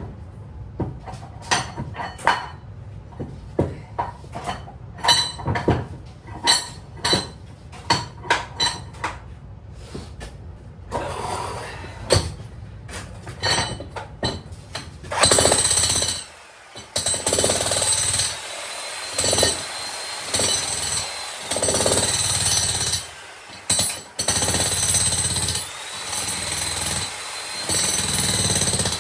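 Makita HM1810 electric demolition hammer breaking up a concrete slab: first a string of separate sharp knocks, then, about halfway in, the hammer running in bursts of a few seconds with short pauses between them.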